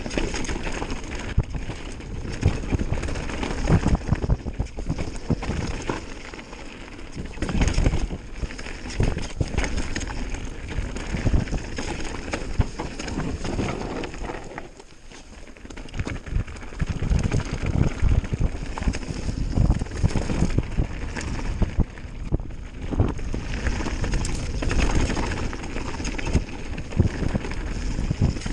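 Mountain bike riding fast down a rough dirt and rock trail: tyres rolling and crunching over the ground, the bike rattling and knocking over bumps, with wind rushing over the microphone. It goes quieter for a moment about halfway through.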